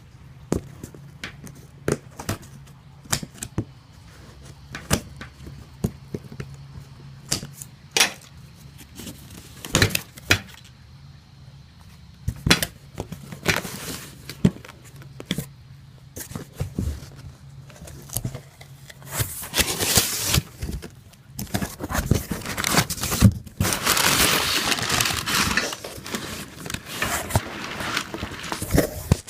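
Cardboard shipping box and packaging being handled and opened: a run of sharp knocks, taps and clicks, then stretches of tearing and rustling of cardboard and wrapping about two-thirds of the way through.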